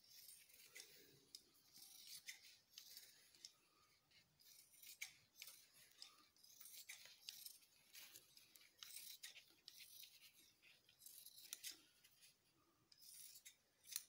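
Scissors trimming excess cloth along a buckram-stiffened collar band: a faint, irregular run of short crisp snips, with some rustling of the cloth scraps.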